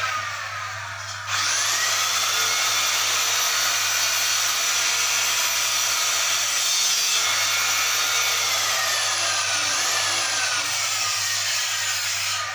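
Electric angle grinder cutting a ceramic wall tile: the motor winds down at the start, spins up again with a rising whine about a second in, and runs steadily. Its pitch sags under the load of the cut about two-thirds of the way through before it winds down near the end.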